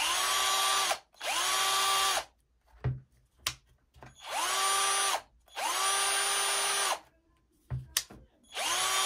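12-volt two-speed cordless drill-driver motor whining in five short trigger pulls, each spinning up quickly and then holding a steady pitch. Between the runs there are sharp clicks as the gear selector is switched. The drill runs in both its speed ranges and spins higher in one gear than in the other.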